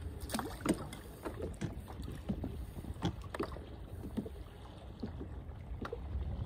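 Small boat rocking on the water: irregular knocks and light slaps against the hull, with wind rumbling on the microphone.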